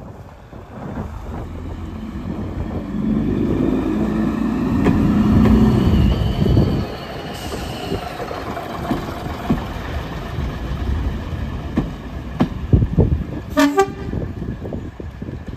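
BR Derby Lightweight diesel railcar running past close by, its diesel engine loudest a few seconds in and then fading as it draws away. A few sharp knocks from the running gear and a short horn toot come near the end.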